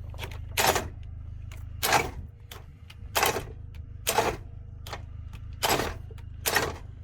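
Cordless drill driver worked in about seven short bursts, each a brief, sharp rattle as the drill stalls on a tight fastener. A steady low hum runs underneath.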